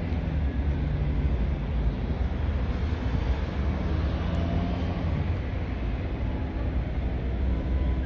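City street ambience: a steady low rumble of traffic, with wind on the microphone.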